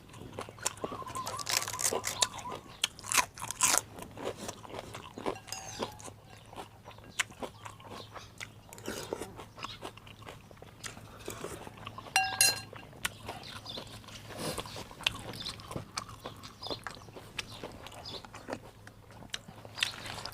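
A man eating beef noodle soup up close: irregular biting, chewing and crunching with many small clicks, and a brief ringing click about twelve seconds in.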